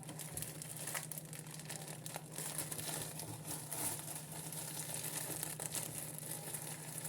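Soft, continuous rustling and crinkling as a T-shirt is handled and pulled on.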